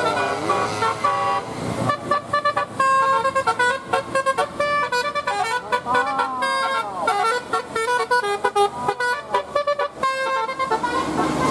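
Indonesian bus 'telolet' multi-tone horn (Basuri type) playing a fast tune of short, stepped notes, one quick toot after another.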